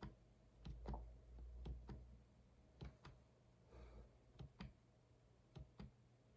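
Faint, sparse clicking of computer keys at an irregular pace, about a dozen clicks, with a soft low thump about a second in.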